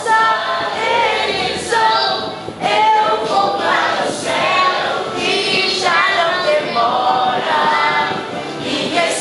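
A child's voice singing a melodic church song, with other voices singing along.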